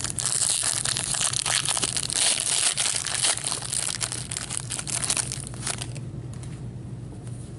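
Foil wrapper of a hockey card pack being torn open and crumpled by hand, a dense crackling that stops about six seconds in.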